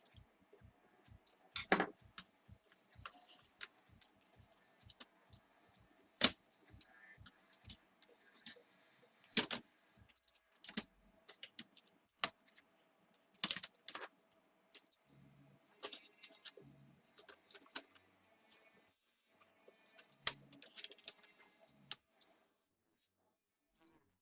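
Laptop casing and small parts being handled during disassembly: irregular light clicks, taps and rattles of plastic and metal, with a handful of sharper, louder clicks.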